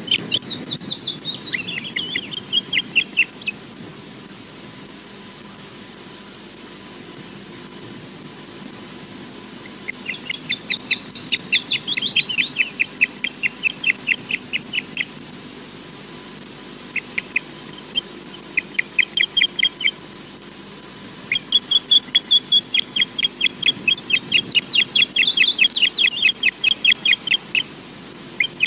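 Osprey calling: bouts of rapid, high, whistled piping notes, several a second, with pauses of a few seconds between bouts.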